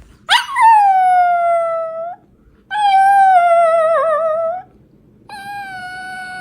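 A pet gives three long, drawn-out wailing calls with short pauses between them. The first starts high and falls, the second wavers, and the third runs on past the end.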